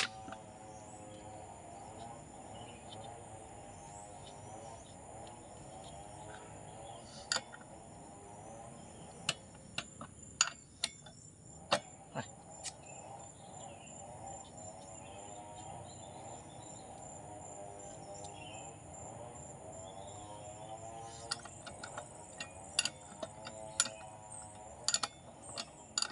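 A steady chorus of insects chirping, with scattered sharp clicks and taps from hands handling a Stihl 070 chainsaw whose engine is not running: a few about ten seconds in and a quick run of them near the end.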